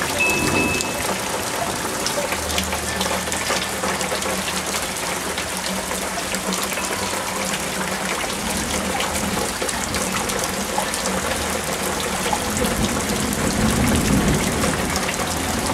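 Heavy rain falling steadily in an even, hissing pour. A low rumble of distant thunder builds near the end.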